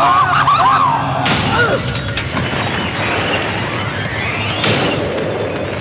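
Cartoon sound effects of a tumbling crash: wavering yells for about the first second and a half, then a dense rumbling din with a tone that glides upward over a second or two.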